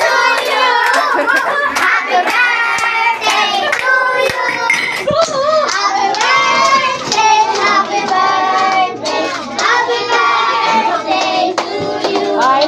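A group of young children singing together, clapping their hands along with the song, most likely a birthday song to a lit birthday candle.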